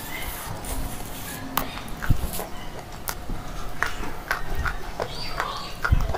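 Slate pencil pieces crunching: irregular crisp cracks and crumbly clicks, with a heavier crunch near the end.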